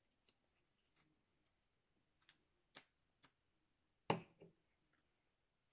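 Near silence: room tone with a few faint, scattered clicks and one sharper tap about four seconds in.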